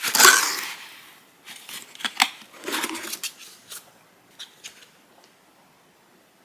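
Paper and cardboard packaging of an Apple Watch box being opened and handled: a loud rustle at the start that fades out, a sharp click a little after two seconds, a second shorter rustle, then a few light taps.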